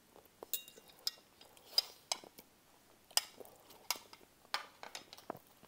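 A fork clinking and scraping against a plate while eating, in a string of short, sharp clinks at irregular intervals, some with a brief ring.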